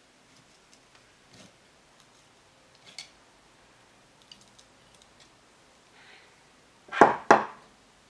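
Small metal parts and tools handled on a workbench: scattered faint clicks and taps, then two loud, short scraping knocks in quick succession about a second before the end.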